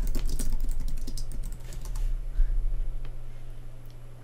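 Typing on a computer keyboard: a quick run of keystrokes over the first couple of seconds, then a single louder thump about two and a half seconds in, over a steady low hum.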